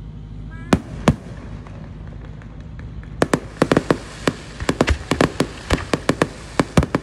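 Aerial fireworks going off: two sharp bangs about a second in, then from about three seconds a rapid, irregular run of loud reports, several a second, over a steady hiss.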